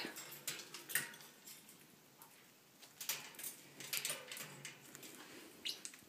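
Faint, scattered clicks and taps on a wire bird cage, in a few small clusters rather than a steady rhythm.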